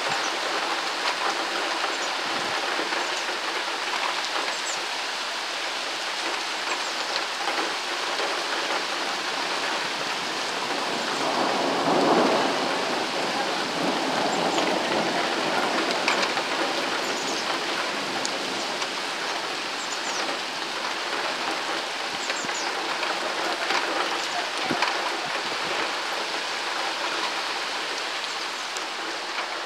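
Heavy rain pouring down steadily in a thunderstorm, with a roll of thunder swelling up about twelve seconds in.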